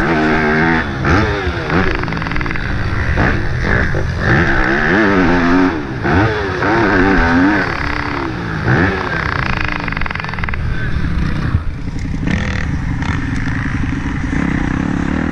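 Yamaha YZ250F's four-stroke single-cylinder engine revving up and dropping off again, over and over, as the bike is ridden hard round a motocross track, heard from a camera on the bike. About eleven seconds in the note settles into a steadier, lower drone.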